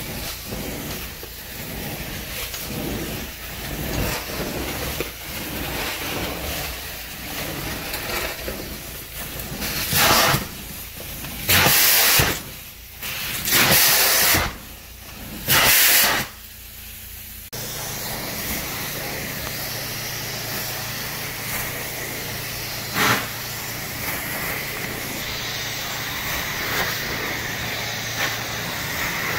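Carpet-cleaning extraction wand's vacuum hissing as it is pulled over carpet in repeated dry strokes, suction only to draw out moisture. Midway come four loud rushes of air, each about a second long, then a steadier hiss with a low hum as the wand works a rug.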